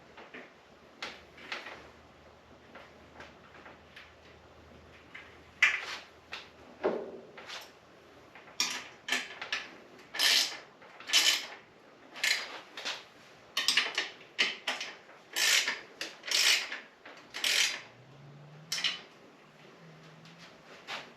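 A run of short, sharp scraping and rubbing sounds, about one a second, from hands-on work on a bicycle wheel and tire, with scattered light clicks before them.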